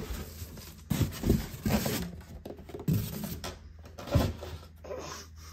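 A heavy electric scooter being hauled out of its cardboard box: packaging scraping and rubbing, with a series of short knocks and thumps.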